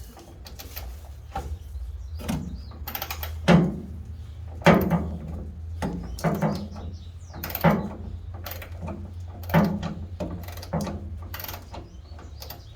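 Socket wrench clacking in repeated strokes, about one a second, as a rear bumper bolt on a Jeep Comanche is worked loose. A steady low hum runs underneath.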